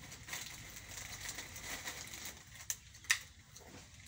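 Electric hair clippers shaving a head down to the scalp, a soft crackling of hair being cut, with two sharp clicks less than half a second apart about three seconds in.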